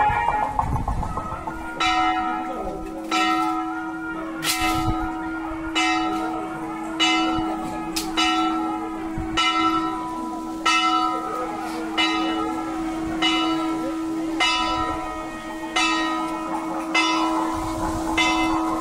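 Hindu temple bell rung with steady, evenly spaced strokes, about one every second and a quarter, each stroke ringing on, over a steady low hum.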